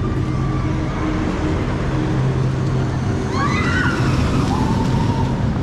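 A steady low mechanical hum, with a brief wavering cry a little past halfway.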